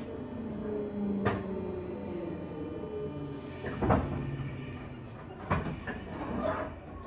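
JR West 201-series electric train pulling in at a station: a faint whine falling away as it stops, then a hiss of air about three seconds in and a loud clunk as the pneumatic sliding doors open, followed by a few more knocks.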